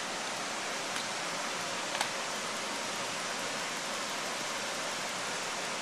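Steady, even rushing hiss with no engine tone, and two faint clicks about one and two seconds in.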